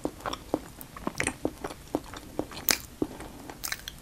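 Close-miked eating sounds: chewing with wet mouth clicks and smacks, irregular sharp clicks several times a second, along with a spoon scooping in a plastic cup.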